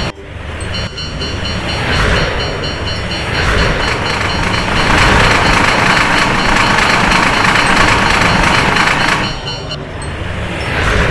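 Japanese level-crossing warning bell ringing its steady "kan-kan" alarm while a train runs past, the rushing rail noise loudest in the middle. The bell cuts off near the end.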